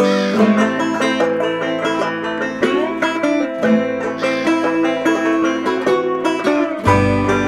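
Background music: an upbeat plucked-string instrumental with a banjo to the fore, in a bluegrass style. A deep bass comes in near the end.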